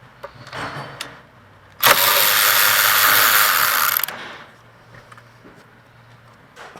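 Cordless electric ratchet running for about two seconds, spinning out the 12 mm bolt that holds the brake line to a rear brake caliper. A few light clicks of handling come before it.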